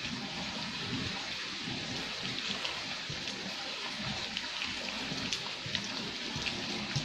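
Sliced raw chicken being mixed with egg, cornstarch, flour and sauces in a bowl: a steady wet sloshing with scattered small clicks.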